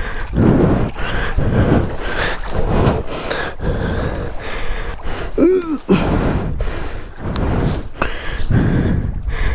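Heavy, rhythmic panting from someone straining to push a loaded motorcycle through shallow water, with a short voiced grunt about five and a half seconds in.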